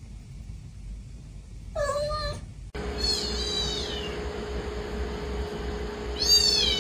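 A cat meows once about two seconds in. Then come two higher-pitched, falling mews, one just after the first and one near the end.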